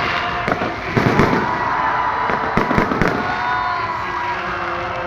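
Fireworks going off: a rapid, irregular series of bangs and pops over a continuous background of crackling bursts.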